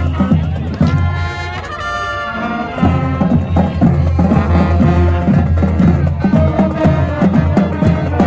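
Music with brass horns and percussion: the horns hold notes in the first couple of seconds, then a steady beat takes over from about three seconds in.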